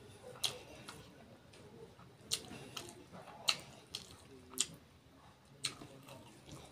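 Close-miked eating: chewing with wet mouth smacks, heard as about half a dozen sharp clicks at irregular intervals.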